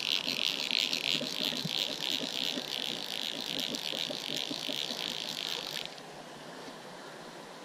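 Orvis fly reel ratcheting in a fast, continuous buzz of clicks as line is wound in on a hooked trout, stopping about six seconds in.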